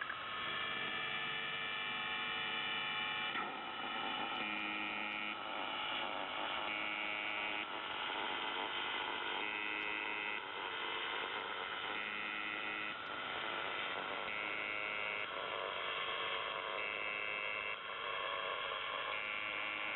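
Shortwave radio on 4625 kHz in upper sideband: the UVB-76 "Buzzer" station's repeating buzz, each buzz about a second long and coming roughly every two and a half seconds, over a steady hum and static.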